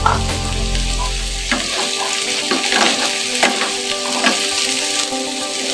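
Vegetables sizzling in a nonstick frying pan, stirred with a wooden spatula that scrapes and knocks against the pan from about a second and a half in. A low hum cuts off just under two seconds in.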